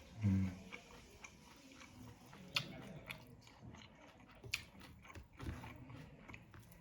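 A person chewing and biting food close to the microphone, with wet mouth sounds and a handful of sharp crunchy clicks. There is a brief low sound about a quarter second in.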